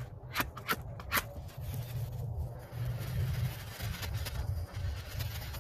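Wind buffeting the microphone, an uneven low rumble throughout, with a few sharp handling clicks and knocks in the first second.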